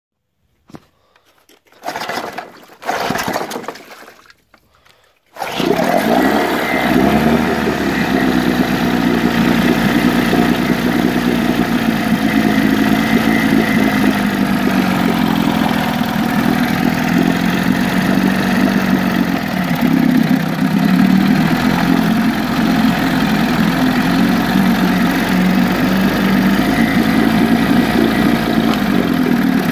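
15 HP Force outboard, a Chrysler-derived two-cylinder two-stroke, started: two short bursts, then about five seconds in it catches and runs steadily at a fast idle.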